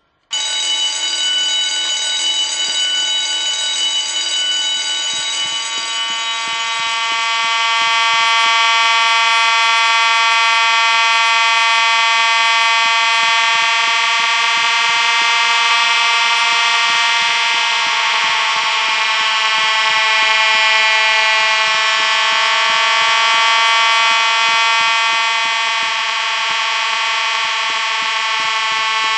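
Loud continuous buzzing alarm tone that starts abruptly and holds steady without pulsing.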